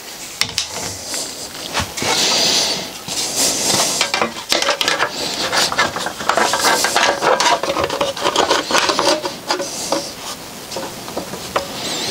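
Thin steel sheet being handled and fitted into a manual sheet-metal bending machine: irregular scraping, rattling and metallic clanks as the sheet slides against the machine's steel parts.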